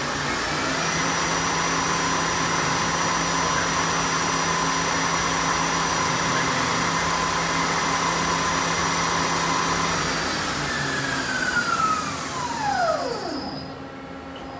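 Mori Seiki ZL-35 CNC lathe spindle spinning its 12-inch three-jaw chuck at speed, a steady whine and whir from the spindle drive. About ten seconds in the spindle winds down, its whine falling steeply in pitch over about three seconds until the chuck stops.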